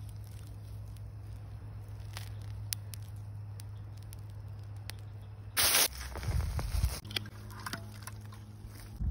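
Molten aluminium pouring into a fire ant mound, with faint scattered crackles and ticks over a steady low hum. A bit past halfway comes a short loud rush of noise followed by low thuds.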